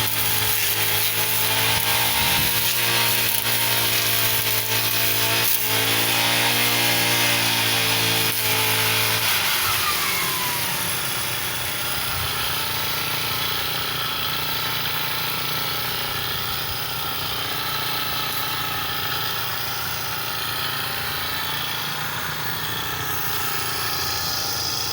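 Two-stroke brush cutter engine running at high speed, then throttled back about ten seconds in, its pitch falling as it settles to a lower, steady running speed.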